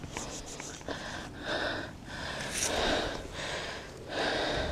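A mountain biker breathing hard, in heavy breaths about every second and a half, close to the helmet camera's microphone.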